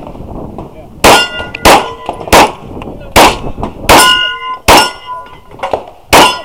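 Glock 34 9mm pistol firing seven shots, most of them under a second apart, with a longer gap before the last. Most shots are followed by the ringing clang of a steel target being hit.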